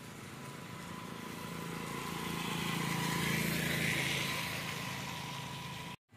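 A motor vehicle passing on a wet road: engine hum and tyre hiss swell to a peak about three and a half seconds in, then fade. The sound cuts off abruptly near the end.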